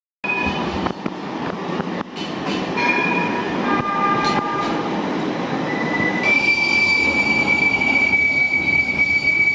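Modern street trams running on rails, a dense rumbling noise with short high-pitched squeals. From about six seconds in there is one long, steady high-pitched squeal from a passing tram.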